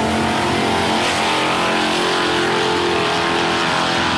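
A supercharged 3.8-litre V6 Pontiac Fiero and an older Dodge running side by side down a drag strip at full throttle, heard from trackside as they pull away. Steady engine tones sit over a loud rushing noise.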